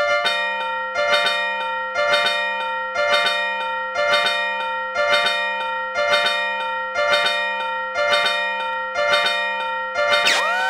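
Level-crossing warning bell ringing in a steady repeated pattern, about one ringing stroke a second over held tones, with a rising swoop near the end.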